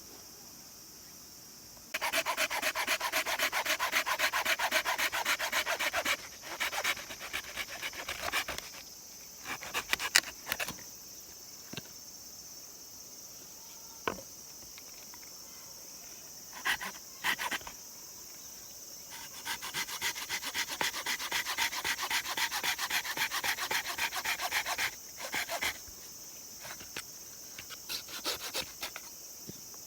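Fast, evenly repeated scraping strokes in two runs of several seconds each, with scattered knocks and short scrapes between them.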